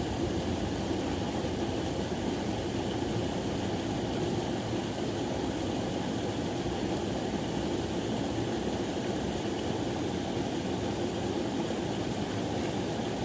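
Steady rushing of flowing river water, an even noise with no single event standing out.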